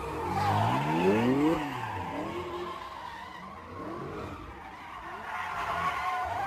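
A car engine revving hard, its pitch climbing then dropping about a second and a half in, followed by smaller revs, with tires screeching on pavement.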